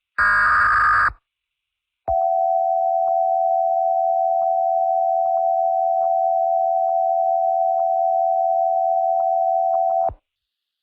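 Emergency Alert System tones: the last of three SAME header data bursts, a raspy electronic warble about a second long, then after a second's silence the EAS two-tone attention signal, one steady held tone lasting about eight seconds that cuts off suddenly. The header burst encodes the alert, and the attention tone signals that a spoken emergency message follows.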